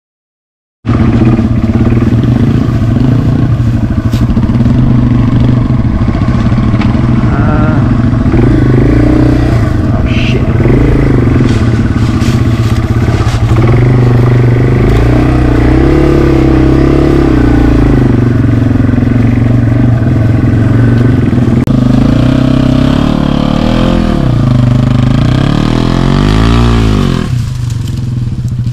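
Yamaha TW200's single-cylinder four-stroke engine running close up as the bike is ridden, revving up and down, with quick rises and falls in pitch near the end. Starting about a second in, after silence; just before the end it becomes quieter and more distant.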